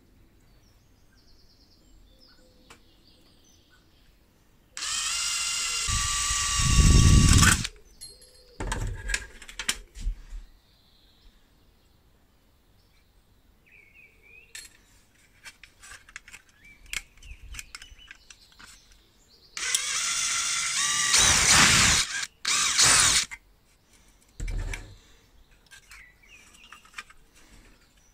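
A small handheld power tool runs in two bursts of about three seconds each, the second about fifteen seconds after the first; the first grows louder and deeper near its end. Between the bursts come light clicks and taps of small metal lamp parts being handled.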